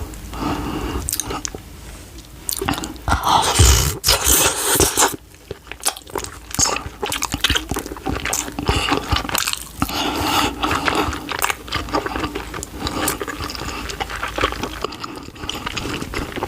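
Close-miked mouth sounds of a person biting into and chewing a hot dog: wet smacks and many sharp clicks, with the loudest stretch a few seconds in.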